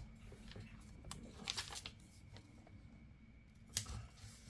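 Faint rustling and crinkling of paper sticker sheets being handled: a few short rustles, with a sharper one near the end.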